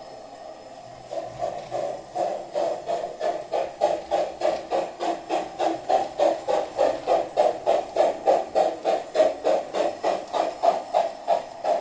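Steam-locomotive chuffing from the mXion SX6 sound module in an LGB 20753 'kleine Dicke' model locomotive, played through the model's loudspeaker as it drives. The chuffs start about a second in and run evenly at about three to four a second.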